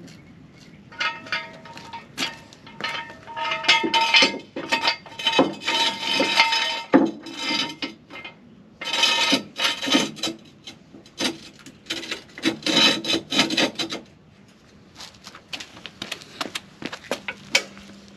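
Metal jack stand and hand tools being handled under a car: irregular metal scraping and clinking, some knocks leaving a short metallic ring.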